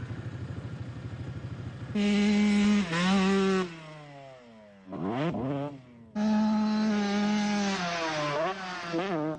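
Motorcycle engine, a low pulsing idle that breaks into two long bursts of high revs about two seconds and six seconds in, with a quick rev down and back up between them; the pitch wavers and drops near the end.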